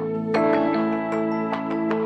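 Soft, slow piano music: single notes struck over held chords.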